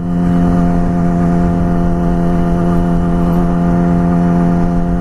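Yamaha R6 inline-four motorcycle engine running at a steady speed while riding, its pitch holding level, with wind rumble on the helmet microphone.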